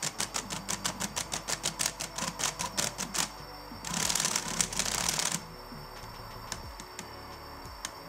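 Rubik's Cube solving robot driven by brushless drone motors clacking through cube turns: a run of separate clicks about six a second, then a dense rattling burst about a second and a half long, like a full solve.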